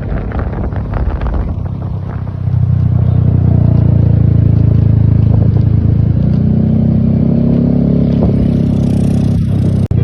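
Bus engine running close by. It grows sharply louder about two and a half seconds in and rises in pitch from about six seconds in, as the engine revs.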